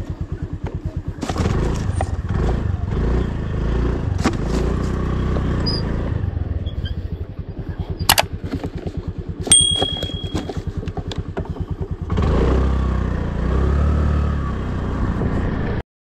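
Honda scooter's single-cylinder engine running at idle with quick even pulses, the throttle opened twice, about a second in and again near twelve seconds, so it runs louder for several seconds each time. A sharp click about eight seconds in and a brief high whistle near ten seconds; the sound cuts off abruptly just before the end.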